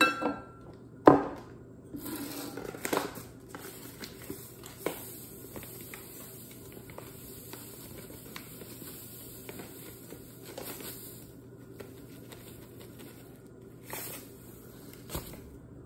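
Granulated sugar poured from a paper bag into a glass measuring cup: a steady hiss of falling grains, with the bag crinkling and small ticks, after one sharp knock about a second in. The pouring stops, then comes back briefly near the end as the bag is shaken.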